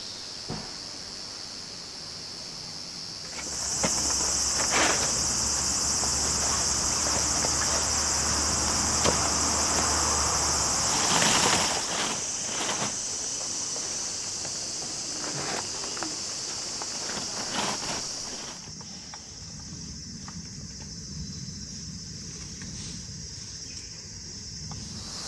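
Insects chirring in a steady, continuous high-pitched chorus, with a few light knocks scattered through it.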